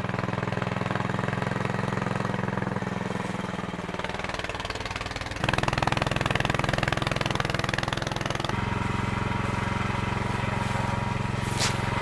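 Snowblower engine running steadily. For about three seconds in the middle it gets louder, with a broad noise added over the engine tone.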